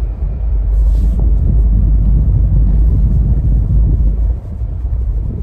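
Car's road and engine rumble heard from inside the cabin while driving, a deep, steady rumble that drops in level about four seconds in.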